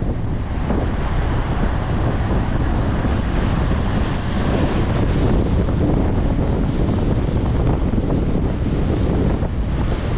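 Heavy wind buffeting the microphone in a loud, steady low rumble, over a rush of water.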